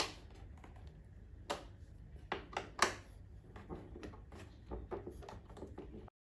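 Irregular clicks and knocks of hard plastic parts being handled and worked apart on a car's HVAC air distribution unit, with two sharper knocks about a second and a half and three seconds in. The sound cuts off abruptly just before the end.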